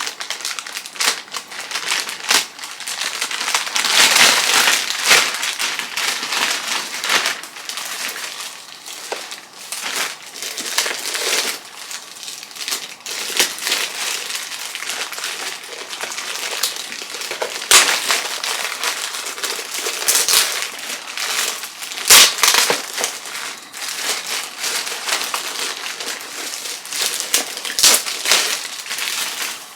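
Packaging crinkling and rustling as it is unwrapped by hand, continuous crackles with a few sharper, louder crunches.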